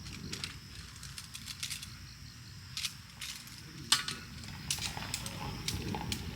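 A scattering of light clicks and taps, with one sharper knock about four seconds in, over a steady low rumble.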